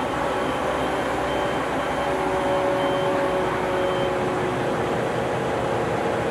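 Yanmar 6AYM-WST six-cylinder marine diesel idling steadily just after starting. A faint high-pitched beep repeats about five times in the first four seconds.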